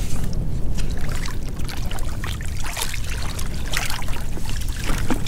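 Rain falling on shallow seawater, with irregular splashes and sloshing of the water.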